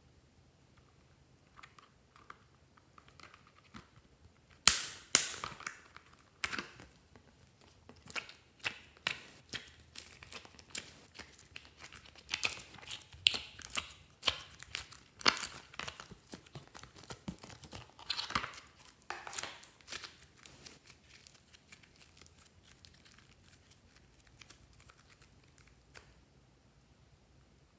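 Slime being handled and stretched by hand, making irregular sticky pops and crackles that come thickest through the middle and die away shortly before the end.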